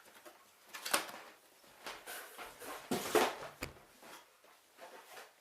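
Cardboard camera box being opened and its packaging handled: scattered rustles and knocks, the loudest about a second in and again around three seconds in.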